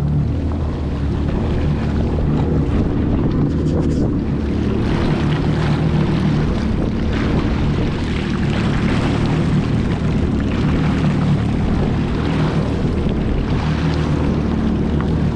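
Jet ski engine running steadily under way, with water rushing and splashing against the hull.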